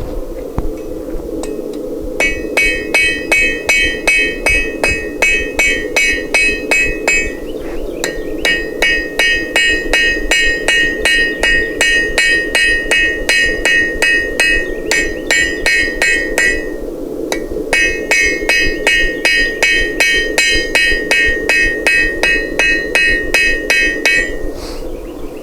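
Hand hammer striking hot steel on an anvil in a steady rhythm of about three blows a second, each blow ringing, while the stem of a forged leaf is drawn out to a taper. The hammering pauses briefly twice, over a steady low rushing noise.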